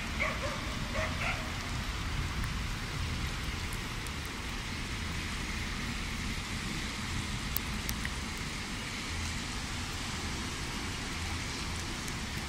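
Steady heavy rain falling on a flooded street and car park, an even hiss with a low rumble underneath. A few short high calls sound faintly in the first second or so.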